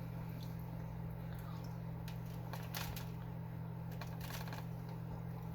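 A person quietly chewing and eating, with a few small clicks and crackles, over a steady low hum.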